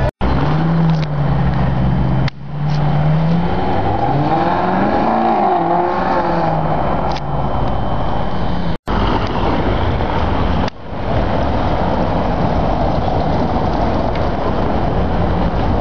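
Sports car engines running loud and revving, the engine note rising and falling a few seconds in, broken by several sudden cuts.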